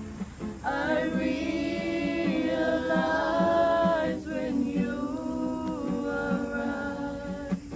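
A group of voices singing together, the voices coming in under a second in with long held notes, over a strummed acoustic guitar.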